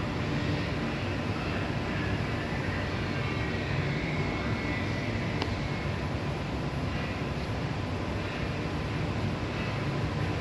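Miyano BND-42S5 CNC lathe running: a steady mechanical drone with a low hum and a faint high whine, with one short click about five seconds in.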